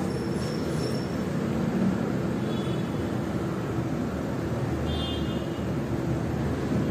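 Steady low background rumble and hiss, like distant traffic, with two faint, brief high-pitched tones, one about three seconds in and one about five seconds in.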